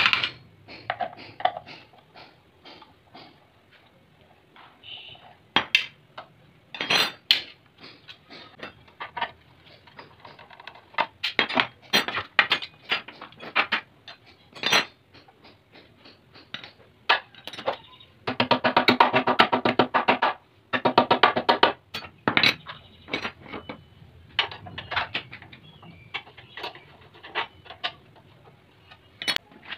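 Metal tools clinking and knocking on a Honda GX390 generator engine and its steel frame as bolts are worked loose with a socket wrench. About two-thirds of the way through comes a couple of seconds of dense rapid clicking.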